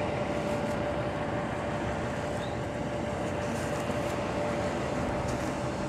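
Steady drone of an idling diesel truck engine, with a faint constant whine over it.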